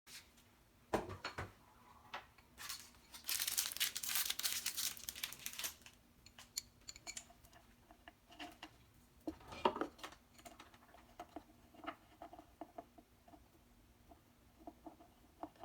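Hands-on handling noise: a knock about a second in, then about three seconds of papery tearing and crinkling, followed by scattered light clicks and taps.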